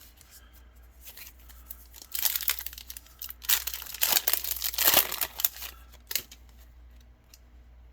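Foil wrapper of a Yu-Gi-Oh trading-card booster pack being torn open and crinkled, in a few rustling bursts from about two seconds in to about six seconds in.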